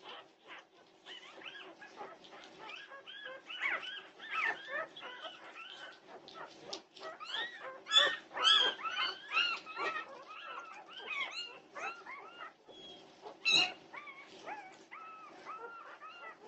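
A litter of young Norwegian Buhund puppies whimpering and squealing, many short high cries overlapping, busiest around the middle, with one sharp yelp near the end. A steady low hum runs underneath.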